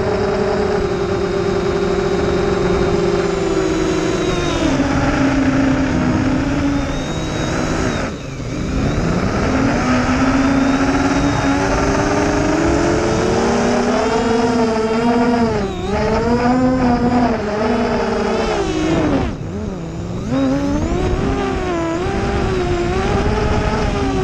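Brushless motors and propellers of a 215-size quadcopter, heard from its onboard camera: a buzzing whine whose pitch rises and falls with throttle. The pitch and level drop sharply about eight seconds in and again near twenty seconds, as the throttle is chopped for dives, then climb back.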